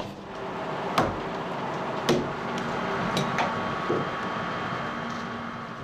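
Sawmill machinery running steadily, with sharp wooden and metal knocks about a second apart and a faint steady whine in the second half.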